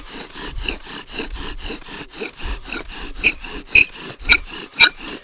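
Bow-drill fire by friction: a wooden spindle spins back and forth in a wooden hearth board, making a rhythmic rasp of about four strokes a second. From about three seconds in, sharp squeaks come about twice a second as the hearth starts to smoke, the stage when hot char dust is building toward an ember.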